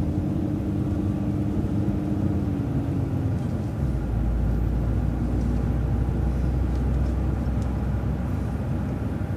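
City transit bus running on the road, with steady engine and road noise. A steady hum fades out about three seconds in, and a deep low rumble takes over for the rest.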